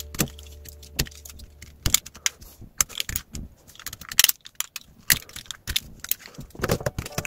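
Irregular clicks, taps and light clatters of small hard parts being handled and set down, a few louder knocks among them.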